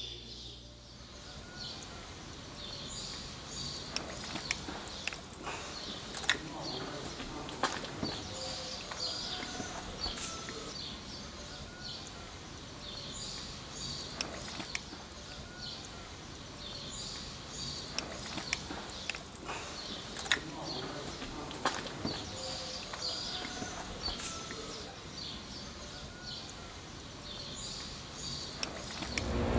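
Birds chirping outdoors, with scattered sharp clicks and taps of hand tools and small metal parts being handled.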